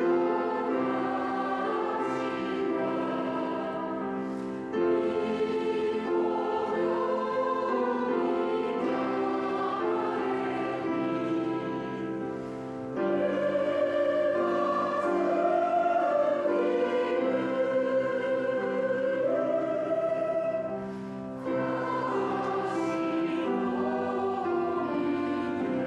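A choir singing a Christmas hymn in long, held phrases, with short pauses between phrases about five, thirteen and twenty-one seconds in.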